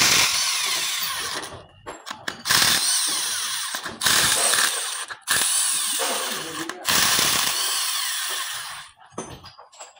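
Handheld electric power tool run in repeated bursts of one to two seconds, five in all with short gaps between, working on the engine's cylinder head. The last burst ends about nine seconds in.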